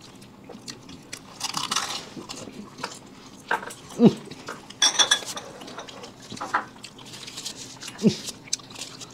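People eating: chewing, crunching and slurping of pani puri and pizza, with scattered small clicks and two short hums that fall in pitch, about four and eight seconds in.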